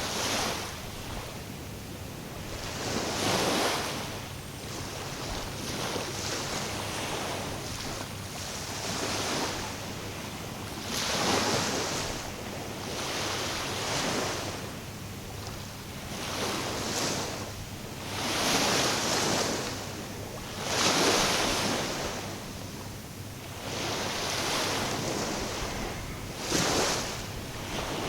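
Small waves washing in on the shore, each swelling up and falling away every two to three seconds.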